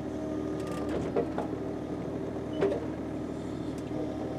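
Excavator running steadily while it works a pile of dirt, with a couple of short knocks, about a second in and again a second and a half later.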